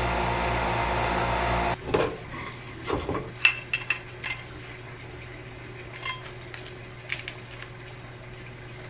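Nespresso coffee machine's pump buzzing steadily as coffee pours, cutting off about two seconds in. Then clinks and knocks of a spatula, plate and frying pan as a sandwich is lifted out, followed by a few light clicks over a faint hum.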